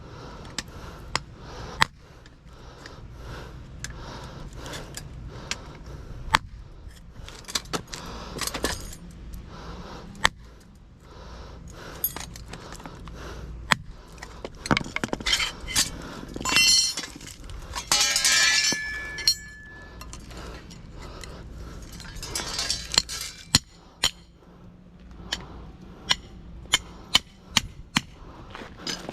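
Irregular sharp metal clinks and knocks, with a few denser stretches of clattering and scraping near the middle, from hand tools working the copper windings out of a scrapped electric motor.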